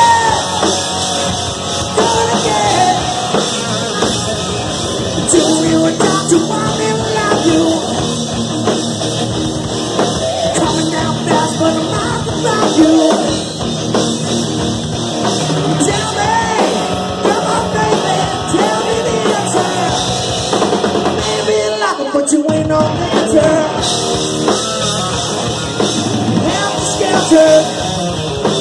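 Live rock band playing loud: distorted electric guitars and a drum kit, with a singer's voice over them.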